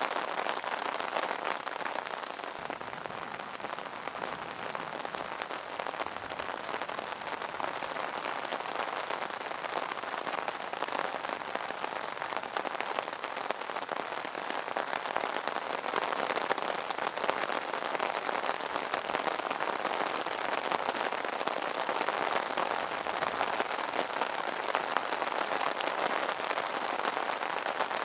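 Steady rain pattering on an umbrella: a dense, even patter of many small drops striking taut fabric.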